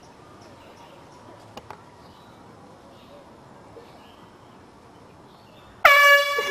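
Air horn blast near the end: a sudden, loud, steady tone with a brief upward slide in pitch as it starts. Before it there is only quiet outdoor background with two faint clicks.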